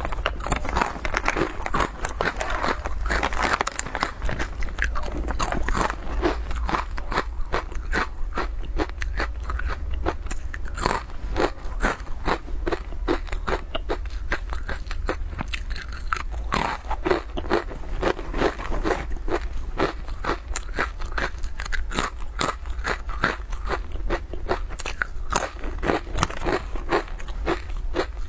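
Crisp guoba (fried rice-crust crackers) being bitten and chewed, a fast run of sharp crunches that keeps going with only brief let-ups.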